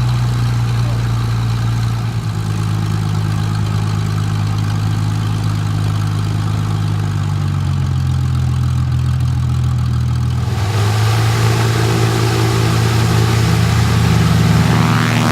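Rolls-Royce Merlin V12 of a Hawker Sea Hurricane running with a steady drone. About ten seconds in it turns fuller and brighter, and near the end it takes on a sweeping, phasing sound.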